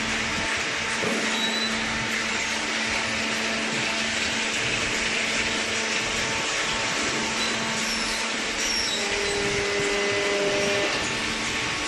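Hydraulic cardboard baler running: a steady machine hum and hiss from its motor and hydraulic pump, with a brief higher tone added near the end.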